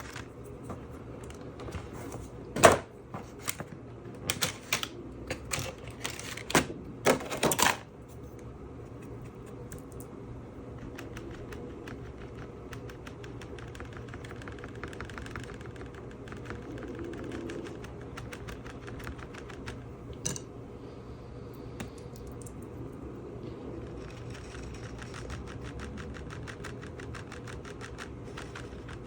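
Light, rapid tapping and clicking: several sharper clicks in the first eight seconds, then a fast, even patter of soft taps from about ten seconds on.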